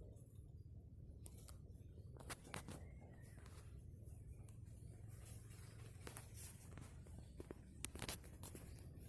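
Faint scattered rustles and clicks over a low steady background hum, with a few sharper ticks about two seconds in and again near the end.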